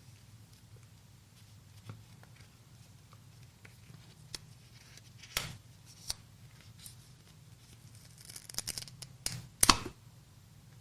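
Packaging of an Apple Magic Keyboard handled during unboxing: scattered light clicks and crinkles of paper and plastic, a sharp crackle about halfway through, then a flurry of crackling that ends in the loudest crackle near the end.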